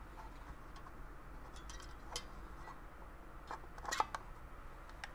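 Faint clicks and light knocks of a plastic sewing machine foot pedal casing being handled in gloved hands, a handful of separate clicks with the loudest about four seconds in.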